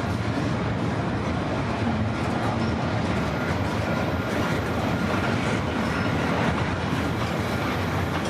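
CPKC freight train's cars rolling past at slow speed: a steady rumble of steel wheels on the rails as the train pulls out and gathers pace.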